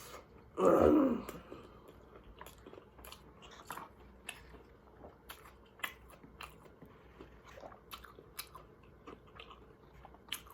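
Close-up chewing and biting of a fully loaded corn dog, with small crunches and wet mouth clicks scattered throughout. A short, loud falling vocal sound comes just under a second in.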